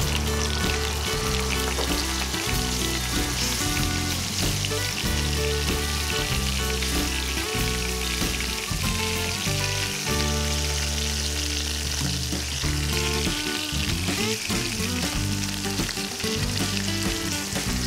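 Masala-marinated prawns and a whole fish sizzling steadily in hot oil in a nonstick pan, stirred now and then with a wooden spoon. Background music with low steady notes plays underneath.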